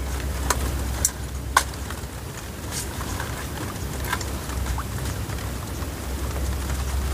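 Sharp snips of hand scissors cutting luffa gourd stems on a trellis, about six over a few seconds, with leaves rustling, over a steady low rumble.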